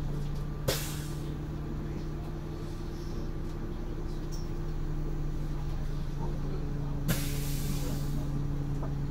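Renault Agora V2 city bus under way, heard from inside the cab: a steady engine hum, with two sharp hisses of compressed air from the air brakes, a short one just under a second in and a longer one of about a second around seven seconds in.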